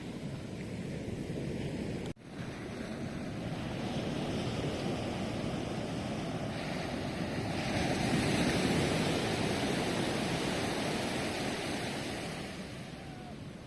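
Ocean waves breaking and washing up a beach, one wave swelling to its loudest about two thirds of the way through and then easing off. A brief break in the sound about two seconds in.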